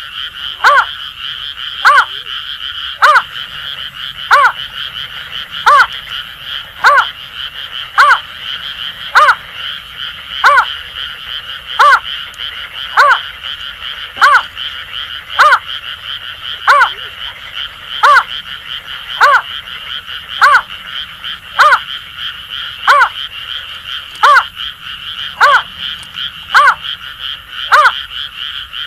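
Greater painted-snipe calling, a loud note repeated evenly about every second and a bit, each note dropping slightly in pitch, over a steady chorus of Asian grass frogs.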